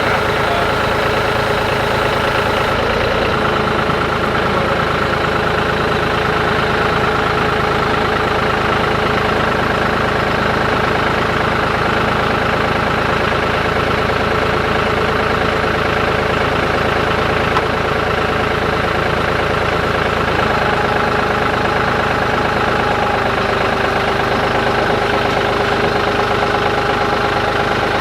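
John Deere tractor engine running steadily, its pitch shifting slightly a few seconds in and again about two-thirds of the way through.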